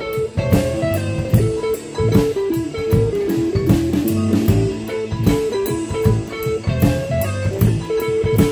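Live band playing a bluesy groove: guitars picking melody lines over a steady drum beat.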